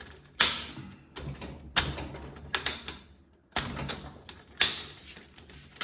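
Cover being fitted onto a rack's cable manager: a handful of sharp clicks and knocks, each followed by a short scraping rattle.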